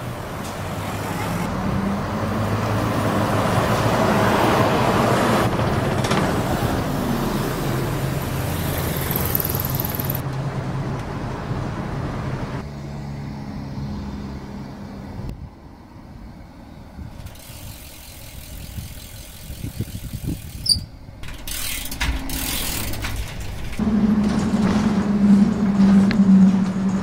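Motor vehicles passing close by on a road: a car's engine and tyres swell and fade over the first several seconds, things quieten in the middle, and near the end a bus's engine comes through with a steady low hum.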